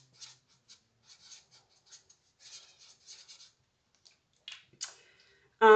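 Marker pen writing on notebook paper: a quick series of short, faint scratchy strokes as a word is written out by hand.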